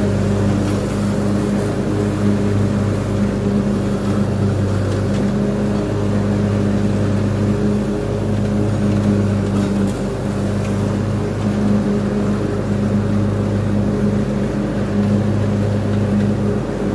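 Craftsman Z6000 zero-turn mower's engine running at a steady speed while the mower is driven, an even drone.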